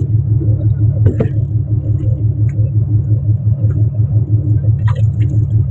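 Fishing boat's inboard engine running steadily with a loud, throbbing low drone. A few light knocks and clicks sound over it, about a second in and again near the end.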